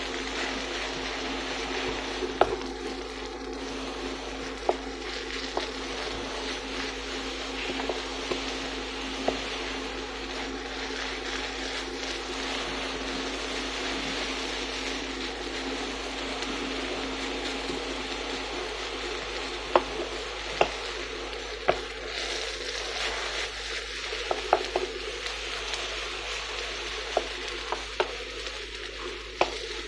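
Kimchi fried rice sizzling in a nonstick pan as a spatula stirs and turns it, with sharp knocks of the spatula against the pan now and then, more often in the second half. A steady low hum runs underneath.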